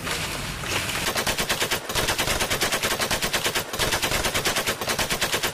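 Machine-gun fire sound effect: rapid shots at about a dozen a second, in long bursts broken by two brief pauses.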